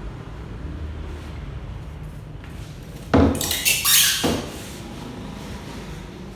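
Welding machine accessories being handled out of their packing: a sharp knock about three seconds in, then about a second of crinkling and scraping with a second knock, over a low steady hum.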